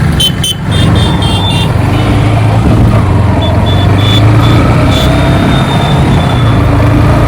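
Bajaj Pulsar NS160 single-cylinder motorcycle being ridden on the road, its engine running steadily under a loud low rumble.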